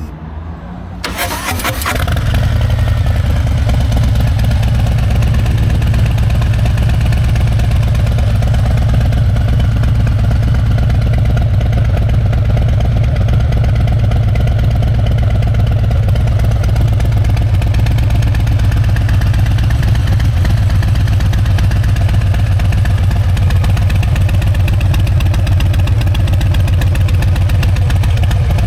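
Harley-Davidson Sport Glide's Milwaukee-Eight V-twin, fitted with a stage 1 exhaust, cranking briefly about a second in and catching, then idling steadily with a deep, even pulse.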